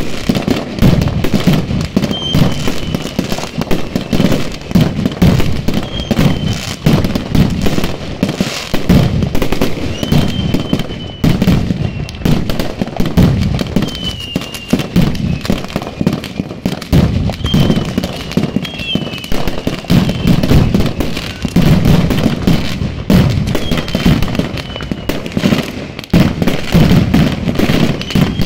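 Mascletà firecrackers exploding in a fast, continuous rattle of bangs, with heavier low surges every second or two.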